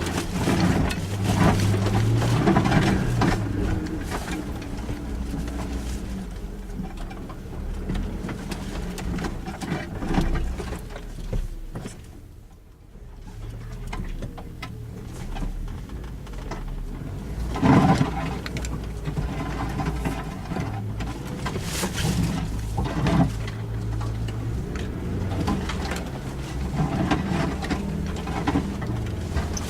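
Suzuki Jimny's engine running at low revs, its pitch rising and falling, with scattered knocks and clunks; the loudest knock comes about 18 seconds in, and the engine noise dips briefly a little before the middle.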